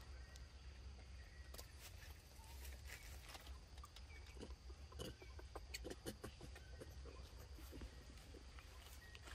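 Near silence: faint scattered clicks and soft rustles over a low steady rumble, the small sounds of macaques chewing mango and shifting about on stone and dry leaves.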